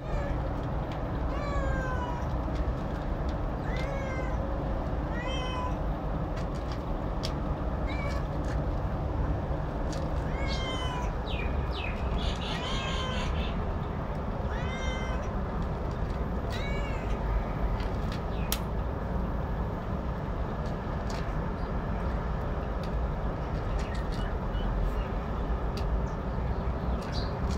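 A cat meowing repeatedly: about ten short meows, each falling in pitch, a few seconds apart, stopping about two-thirds of the way through. A steady low background rumble runs underneath.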